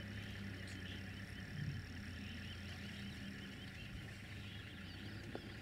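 Outdoor ambience of many small chirping calls repeating over a steady low hum.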